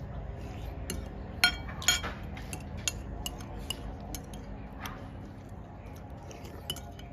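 Metal spoon clinking and scraping against a ceramic bowl while eating, with two sharper ringing clinks about one and a half and two seconds in and lighter taps scattered through the rest.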